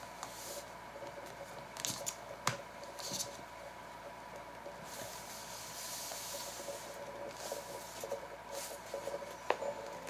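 Paper notebook pages rubbed and pressed flat by hands with a soft rustle, and a few light metal clicks as a wire page clip is set over the pages. A faint steady hum runs underneath.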